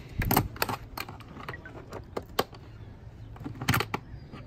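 A socket ratchet clicking in short back-and-forth strokes as 10 mm bolts are loosened: a run of sharp, irregularly spaced clicks, bunched a few to the second near the start and again near the end.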